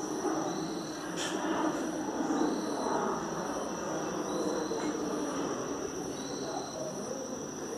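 Night insects calling: a steady high-pitched trill, with a short chirp repeating about every two seconds, over a low background murmur like distant talk.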